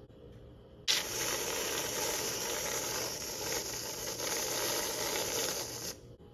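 Aerosol can of whipped cream spraying onto a pancake, a steady hiss that starts abruptly about a second in and cuts off after about five seconds.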